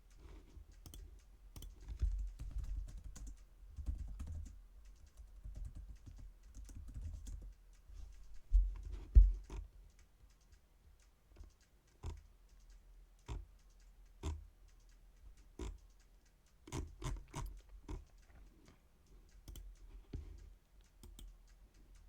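Typing on a computer keyboard: scattered, irregular key clicks, with a few low thumps, the loudest about nine seconds in.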